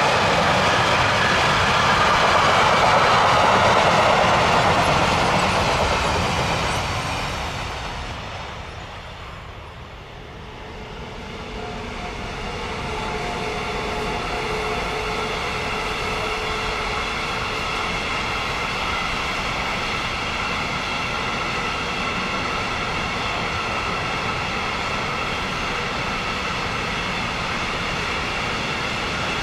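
Freight train wagons rolling past on steel rails, fading away to a low point about ten seconds in. A second freight train, a container train, then comes in and rolls past steadily, with a high ringing from the wheels over the rolling noise.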